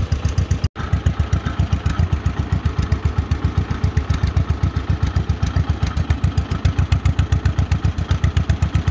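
1948 John Deere Model M's two-cylinder engine running steadily, a fast even pulsing beat of firing strokes. The sound cuts out for an instant a little under a second in, then carries on unchanged.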